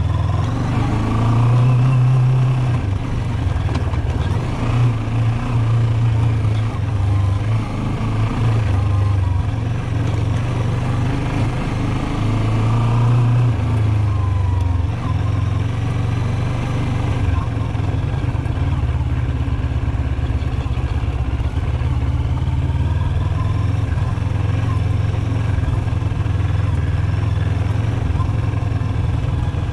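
Motorcycle engine running at low road speed on a dirt track, its pitch rising and falling several times as the throttle is opened and eased.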